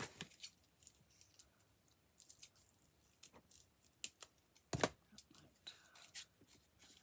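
Scissors snipping and paper being handled: a scatter of small snips and rustles, with one sharper click about five seconds in.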